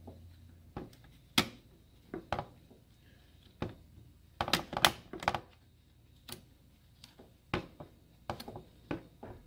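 Irregular plastic clicks and taps from gloved hands handling a 2017 Chevy Silverado radiator shutter assembly and moving its wiring plug aside, with a quick run of clicks about halfway through.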